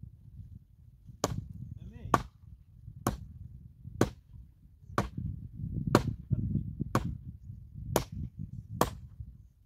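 Nine sharp chopping strikes of a hand tool, evenly paced at about one a second, over a steady low rumble.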